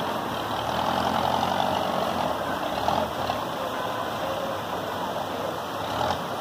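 Muddy floodwater rushing through a swollen creek: a steady, even rush of water noise.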